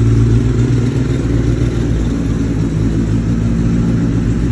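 Kawasaki Ninja ZX-10R inline-four engine running steadily at idle through a freshly installed Graves full titanium exhaust system.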